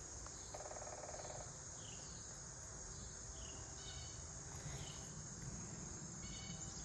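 Insects trilling in a steady, high-pitched drone, with a few faint short chirps now and then and a brief low buzz about a second in.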